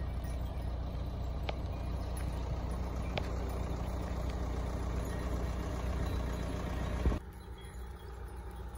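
A steady low engine-like hum runs under background noise, with two brief clinks in the first few seconds. The hum cuts off suddenly about seven seconds in, leaving quieter outdoor noise.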